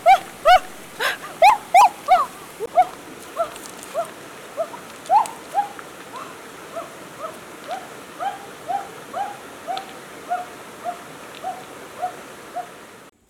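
A young animal's repeated high whimpering calls, each a short rise and fall in pitch, about two a second, louder in the first few seconds and then steady, cutting off suddenly near the end.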